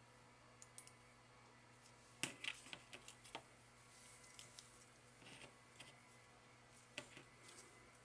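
Near silence with a few faint, sharp clicks and taps, the loudest about two seconds in, as a mouse circuit board is handled and set down on a cutting mat. A faint steady hum runs underneath.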